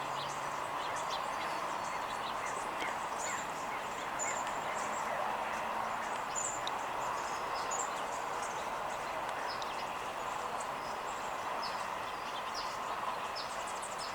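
Small birds chirping in many short, high calls over a steady outdoor background noise.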